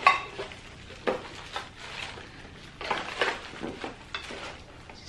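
Plastic packaging crinkling and rustling as an item is unwrapped by hand, with a few sharp clatters, the loudest right at the start.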